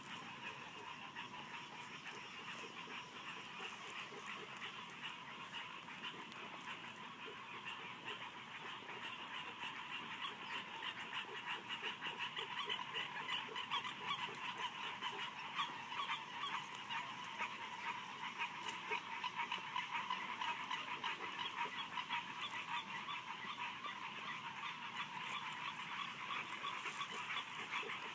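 A chorus of frogs calling, many rapid pulsing calls overlapping into a steady din that grows louder about a third of the way in.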